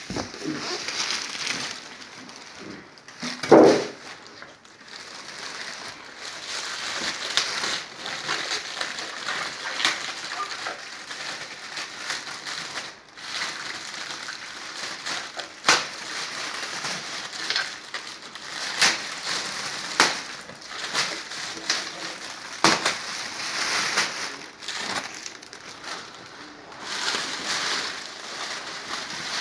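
Packing being pulled off a tower speaker: plastic and foam crinkling and rustling, with scattered knocks and a loud thump a few seconds in.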